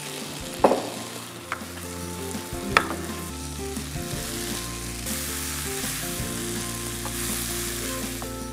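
Vegetables sizzling in a hot oiled frying pan as they are stirred with a wooden spatula, a steady hiss with two sharp knocks, one under a second in and one near three seconds in.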